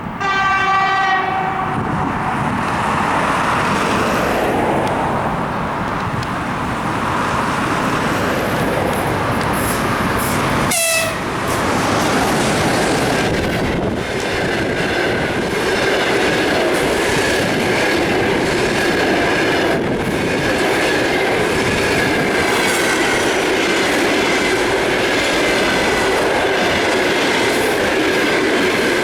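EP20 electric locomotive sounds its horn once, for about a second and a half, as a greeting. Its passenger train then rushes past at speed, the wheels clattering over the rail joints as the coaches go by. A thin steady whine joins about halfway.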